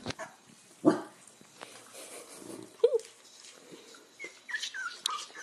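Newborn corgi puppies whimpering, with a run of short, high, falling squeaks in the second half. Two sharp knocks, about one and three seconds in, are the loudest sounds.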